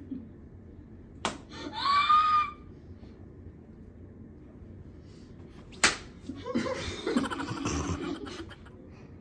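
Two sharp slaps of a flour tortilla on a face, about four and a half seconds apart, the second the louder. After the first comes a short high cry that rises and falls; after the second, shrieks and laughter.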